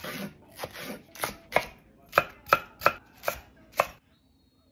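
Chef's knife chopping green onions on a wooden cutting board: about nine sharp, unevenly spaced chops, stopping about four seconds in.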